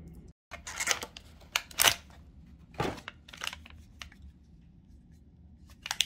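Packaging being handled: the cardboard box of a charger and a cable in a plastic bag. Several brief scrapes and rustles come in the first three and a half seconds, then it is nearly quiet, and more rustling comes near the end.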